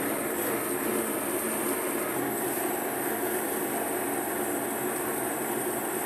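Gas torch flame burning with a steady, even rushing hiss as it heats a steel knife spring to red heat for hardening.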